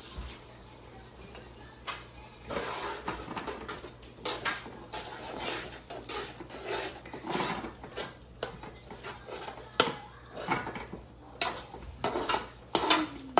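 A spoon stirring, scraping and clinking in a cooking pot, irregular throughout, with several sharp knocks in the last two seconds.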